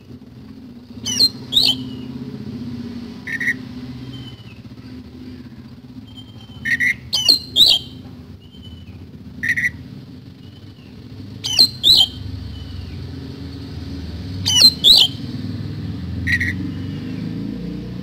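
Caged oriental magpie-robin (kacer) giving loud, harsh call notes in groups of two or three every few seconds, with shorter whistled notes in between, over a steady low background rumble.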